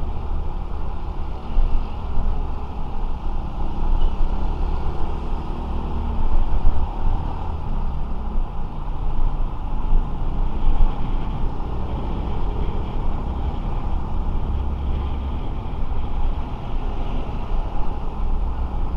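Motorcycle riding noise: a steady low rumble of wind on the camera microphone over engine and traffic noise, swelling a little now and then.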